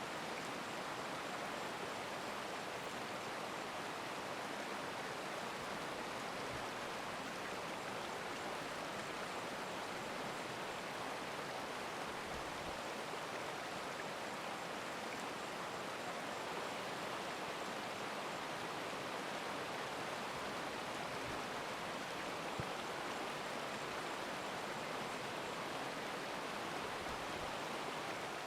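A stream rushing steadily, a continuous even sound of running water.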